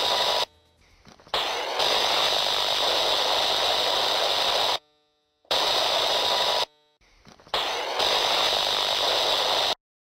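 A loud, steady rushing hiss of outdoor noise, cut into four stretches by abrupt breaks, with short silent gaps between them.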